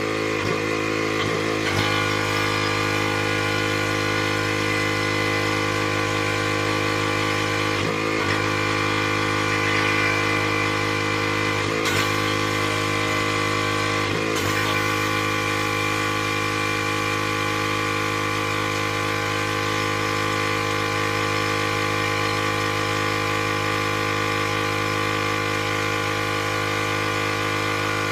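Pressure washer's engine running at a steady pitch over a constant hiss of spray, with a few brief changes in its note.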